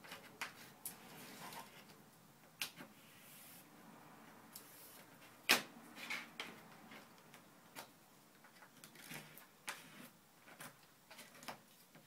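Wooden craft stick pressed and rubbed along the folded paper edges of a switch plate cover: faint scraping with scattered light clicks and taps, and one louder knock about five and a half seconds in.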